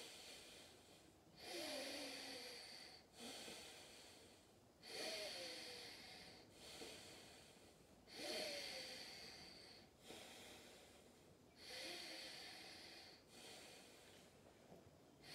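Faint, slow breathing, one breath about every three and a half seconds, each starting sharply and fading away: steady paced breathing while a yoga balance pose is held.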